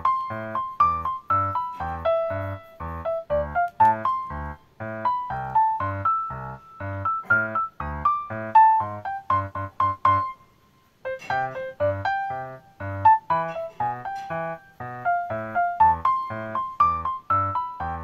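Background piano music: a quick melody of short, separate notes over a bass line, breaking off for about half a second midway.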